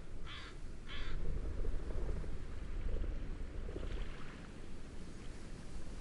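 A bird gives three short, harsh calls in quick succession, with a fainter call about four seconds in, over a steady low wind rumble.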